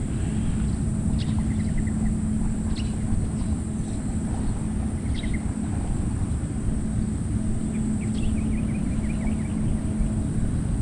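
Steady low rumble and hum of a distant motor, with short trilling bird calls a few times.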